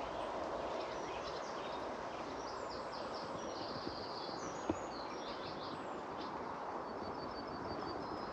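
Small birds chirping in several short, rapid series over a steady outdoor hiss, with a single click about halfway through.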